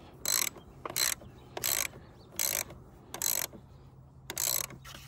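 Ratchet wrench clicking in six short strokes, about one every 0.7 s, as the 10 mm nut on the 12 V battery's negative terminal clamp is tightened down.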